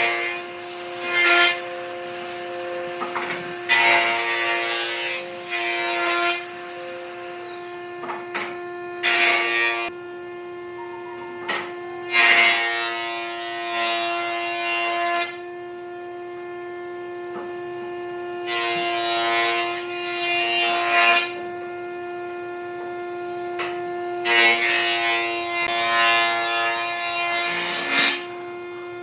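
Repeated bursts of a tool working wood, about six passes of one to three seconds each with pauses between, over a steady hum.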